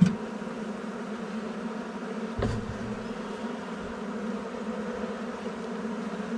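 Honeybees buzzing steadily around an open hive while the frames are handled. There is a sharp click right at the start and a dull knock about two and a half seconds in.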